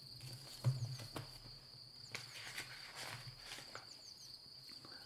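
Pages of a thin paperback picture book being turned and handled: a few soft paper rustles and taps, the clearest about two-thirds of a second in. Behind it runs a steady high chirring of insects, with a few short bird chirps.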